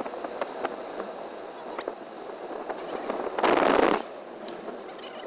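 Wind and road noise from a moving car, crackling on the phone's microphone, with a louder burst lasting about half a second at about three and a half seconds in.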